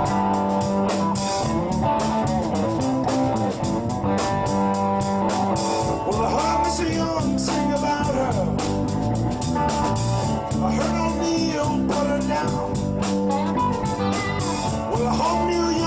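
Rock band playing an instrumental break: a guitar lead with bending notes over a steady bass and drum beat.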